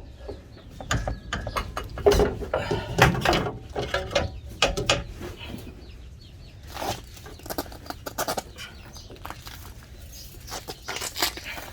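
Irregular metallic clicks, knocks and scrapes as a Rancho QuickLift strut assembly is worked and maneuvered into place in a truck's front suspension.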